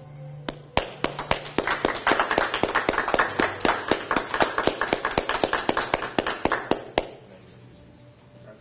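Small audience applauding, the separate claps plainly audible, starting about half a second in and ending with one last clap about seven seconds in.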